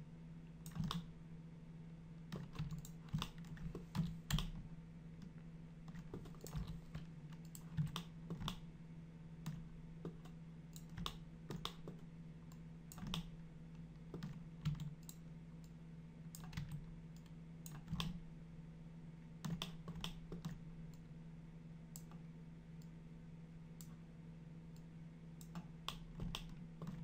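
Computer keyboard keys and mouse buttons clicking irregularly, sometimes several in quick succession, over a faint steady low hum.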